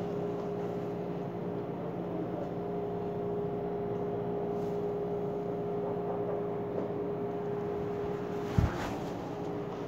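Steady mechanical hum with an even hiss, holding a few constant tones, broken by a single short knock near the end.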